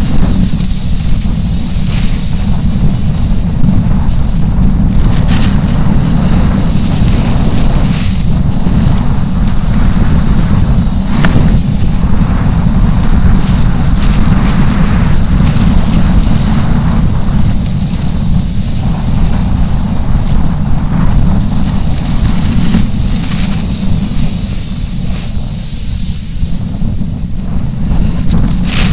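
Heavy wind buffeting an action camera's microphone at riding speed, a dense low rumble, with the snowboard's edges scraping and hissing over packed snow.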